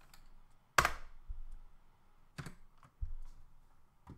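Scattered computer keyboard keystrokes: a sharp, loud one about a second in, then three softer ones spaced apart.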